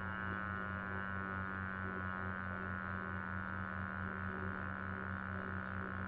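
Synthesized siren wind-down, a chirp tone generated in Audacity, playing back: a steady tone slowly falling in pitch over a low, rapidly pulsing drone.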